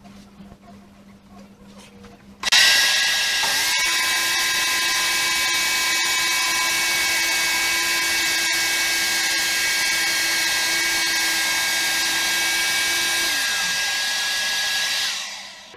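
An electric power tool starts suddenly and runs at a steady high whine for about eleven seconds, with a second motor tone joining a second later. Both spin down with falling pitch near the end, one shortly before the other.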